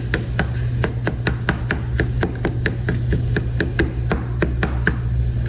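Spatula clicking rapidly against a frying pan while scrambled eggs are stirred, about four to five taps a second, stopping near the end.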